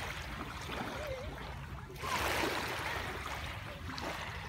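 Small waves lapping and washing onto a gravelly shore, swelling louder about two seconds in.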